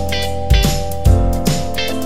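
Background music: a guitar-led track over a steady beat.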